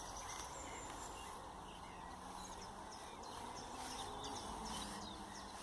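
Faint songbirds chirping in the countryside, short high calls scattered throughout over a quiet outdoor background, with a faint low hum in the second half.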